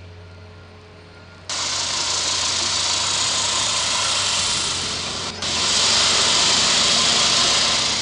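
A low steady engine hum, then about a second and a half in a loud, harsh, steady hiss from a petrol walk-behind concrete saw cutting wet pavement, with a brief break just after five seconds.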